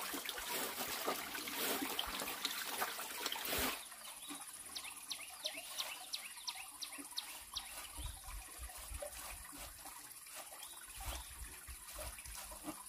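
Running water for the first few seconds, cutting off suddenly. Then a steady high insect drone, with a quick run of about ten short high chirps and a few low thuds.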